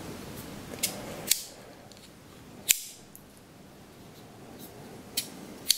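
Boker Plus Griploc folding knife being worked open and shut: about five sharp metallic clicks as the blade snaps into place, the loudest a little under halfway through.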